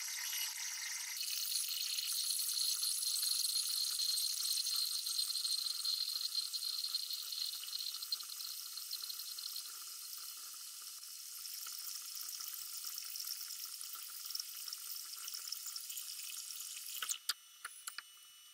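Metal lathe cutting a long metal bar, played back sped up about tenfold, so the machining noise becomes a steady high hiss. About a second in it changes from drilling to turning, and near the end a few sharp clicks come as it gets quieter.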